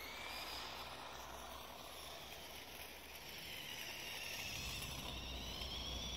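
Electric motor whine of a BuWizz-powered Lego RC motorcycle driving on asphalt, its pitch rising and falling as it speeds up and slows. A low rumble joins about halfway through and the sound grows a little louder toward the end.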